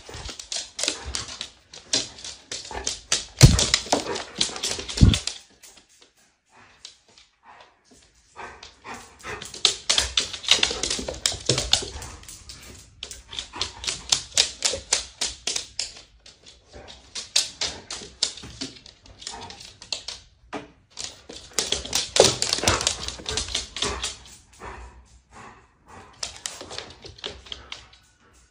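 A golden retriever's and a husky's claws clicking rapidly on a hardwood floor as they run, in several bursts a few seconds long with short pauses between. Two dull thuds come about three and a half and five seconds in.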